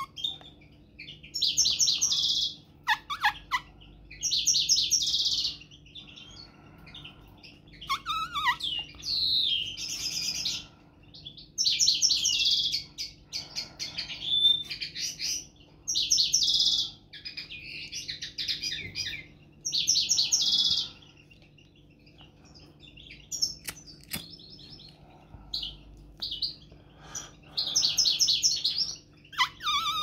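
Caged finches (European goldfinch, European greenfinch and common linnet) singing, one high trilling burst of song about a second long after another with short pauses: birds coming into song in November.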